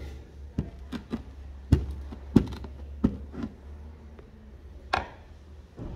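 Wooden mallet knocking down on whole black peppercorns on a plastic cutting board to crack them: about nine irregular sharp knocks and taps. A steady low hum runs underneath and stops near the end.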